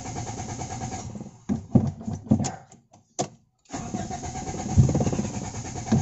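Starter motor cranking a hard-starting car engine in two spells with a short break, with a few heavy thumps between them; the engine does not catch. The engine is said to need about ten cranks before it starts, which the mechanic puts down to a weak ignition spark.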